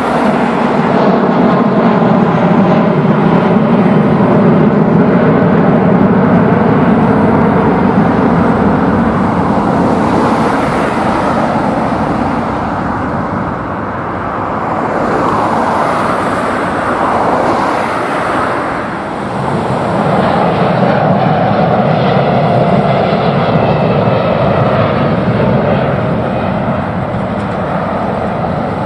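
Jet engines of a departing airliner at take-off power as it climbs away: an Airbus A320 first, then, after a brief dip about two-thirds of the way through, a Boeing 787-9 climbing out.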